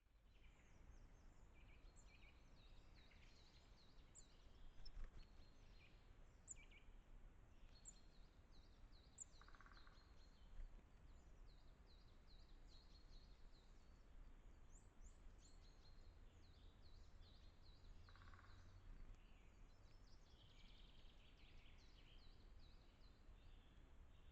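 Small forest songbirds calling faintly, with many short high chirps and twitters scattered throughout and a couple of lower calls, over a steady low rumble.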